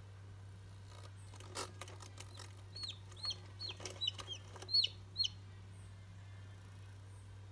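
Newly hatched chick peeping: about seven short, high peeps, each rising and falling in pitch, packed into a couple of seconds, with a few sharp clicks just before and among them. A steady low hum runs underneath.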